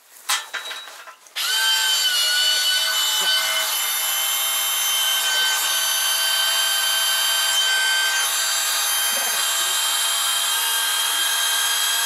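Corded electric drill driving a plastic drill-powered mini water pump, starting up about a second and a half in after a few short knocks, then running steadily at high speed with a steady whine.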